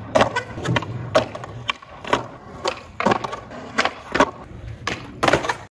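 Skateboard flatground tricks on concrete: about a dozen sharp pops and landing clacks of the board, over the low rumble of its wheels rolling.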